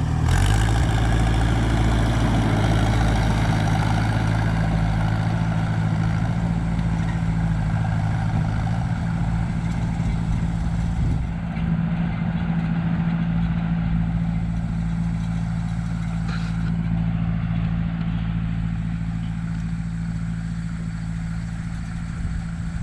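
Heavy earthmoving machine's engine running steadily at a constant speed, a deep even drone. The higher-pitched noise over it eases off about halfway through.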